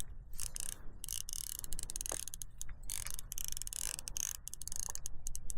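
Fishing reel being cranked to bring in a hooked fish, its gears making a fast, steady clicking.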